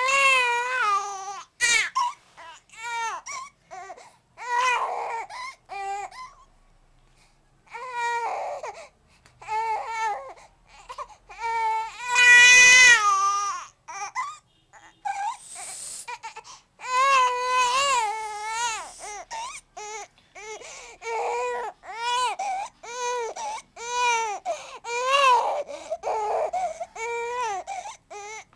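Two-month-old infant crying in a string of short, repeated wails, with a brief pause about a quarter of the way through and one long wail, the loudest, near the middle.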